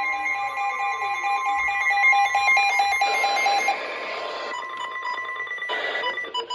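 Emergency alert tone from a broadcast alert receiver: a loud electronic alarm of steady tones pulsing on and off. Its lower tone stops about two-thirds of the way in, and two short bursts of hiss follow in the second half.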